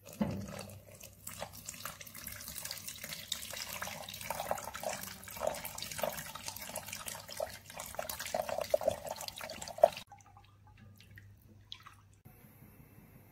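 Milk pouring in a stream into a stainless steel saucepan onto sugar and custard powder, splashing, while a whisk stirs and taps against the pan. It cuts off suddenly about ten seconds in, leaving only a few faint ticks.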